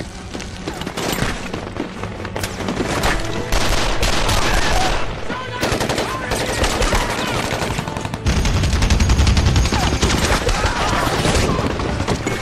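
Film battle soundtrack: continuous rapid automatic rifle and machine-gun fire. A heavy, deep boom like an explosion comes in about eight seconds in.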